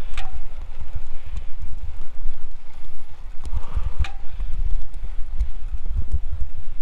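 Irregular low rumble of wind and road vibration on the microphone of a bicycle-mounted action camera, with two sharp knocks, one just after the start and one about four seconds in.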